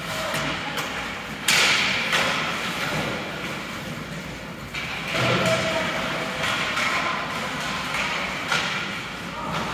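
Ice hockey game sounds in an arena: sudden thuds and knocks of play, the loudest about a second and a half in and another near five seconds, over steady rink noise.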